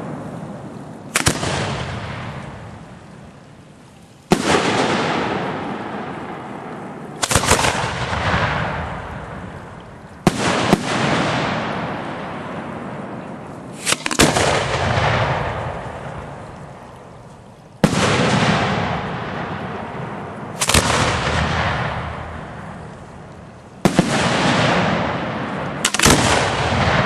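Aerial firework shells bursting about once every three seconds, nine sharp bangs, some in quick pairs, each followed by a long fading rumble and crackle.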